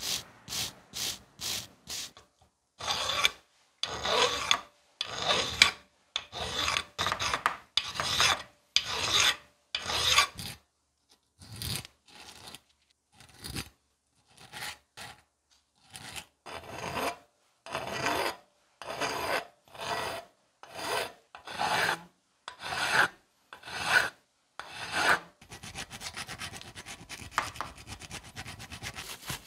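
Needle file being stroked back and forth over a small metal part held in a vise, a rasping scrape about once a second. It opens with a few short, quick wire-brush strokes and ends in a steadier, quieter rasp.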